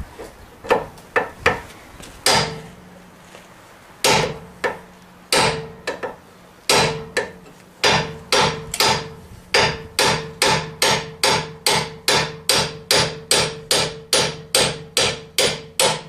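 Hammer blows on steel in a truck's front suspension, each with a short metallic ring, driving out a part that is staked in place. A few separate blows at first, then a steady run of strikes that speeds up to about three a second.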